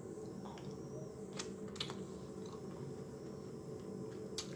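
Low steady background hum with a few faint, sharp clicks: two about a second and a half in, and one more near the end.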